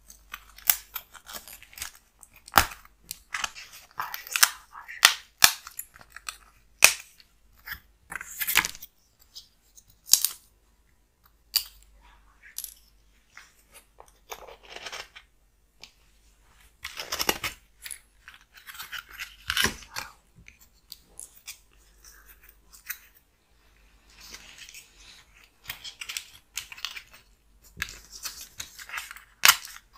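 Foam 3D puzzle pieces being pressed out of their sheets and slotted into the puzzle base: irregular crackling, rubbing and sharp clicks of foam and card, with short pauses between handlings.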